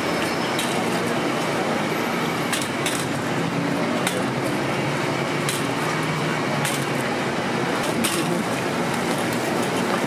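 Steady noise of a busy food stall with a low hum underneath. Over it come short, sharp clicks every second or so as quail eggshells are cracked open over small metal cups.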